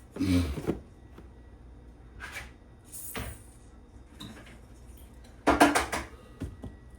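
Kitchen handling noises: a few faint clicks and scrapes, then a short clatter of several sharp knocks about five and a half seconds in, as containers are moved and set down.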